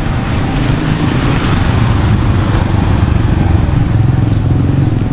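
Street traffic: a motor vehicle's engine running steadily close by, over a hiss of road noise.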